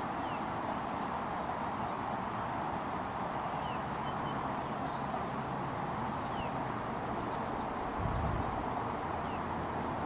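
Creek water flowing over a shallow rippled bed: a steady rushing, with faint short bird chirps now and then. A brief low bump about eight seconds in.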